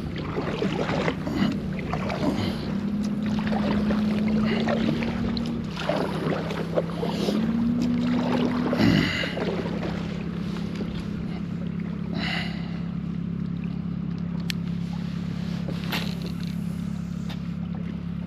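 A boat motor running steadily with a low hum, its pitch rising and holding higher twice, with a few light knocks.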